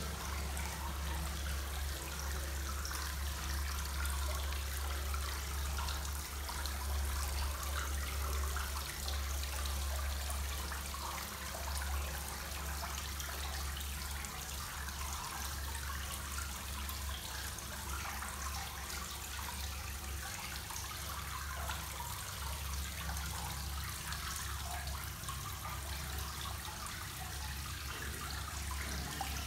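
Hot spring water falling in many streams from a notched wooden frame down a wooden wall into a tiled bath: a steady, dense splashing like heavy rain. A steady low hum runs underneath.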